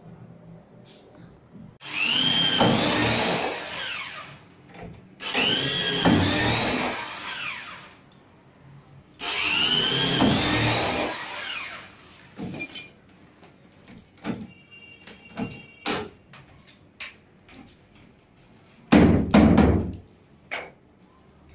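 A small power tool run in three bursts of about two seconds each, its pitch rising and falling within each burst. Scattered clicks and knocks follow, then one more short burst near the end.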